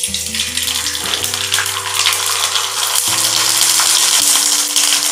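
Rice vadam (sun-dried rice-flour fryum) sizzling steadily as it fries and puffs in hot oil. Background music of held notes, changing every second or two, plays underneath.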